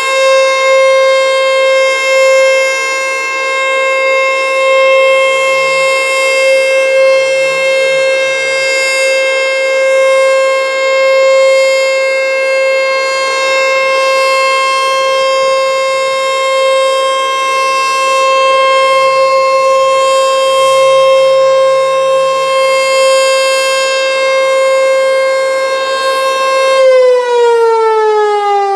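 American Signal T-121 outdoor warning siren sounding during an emergency siren test, holding one loud steady tone. Near the end it begins to wind down, its pitch falling steadily.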